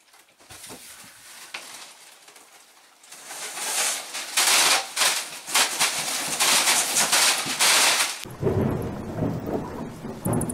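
Rain and thunder, building to a loud downpour with crackling claps; about eight seconds in it changes abruptly to a deep rumble.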